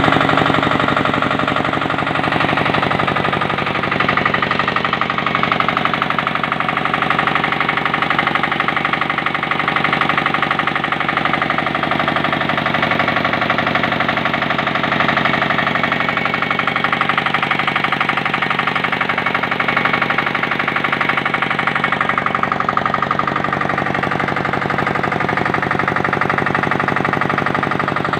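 Freshly overhauled engine running steadily on a test run, with a fast, even firing beat.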